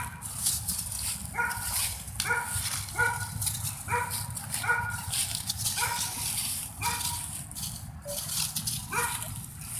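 A dog barking in short, high-pitched barks, about ten of them, roughly one a second.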